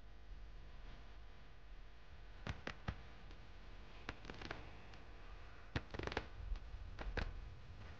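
Faint low background hum with scattered light clicks and taps, several close together at a time.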